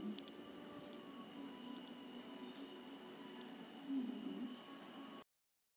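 Crickets chirping in a fast, steady, high-pitched trill that cuts off abruptly shortly before the end.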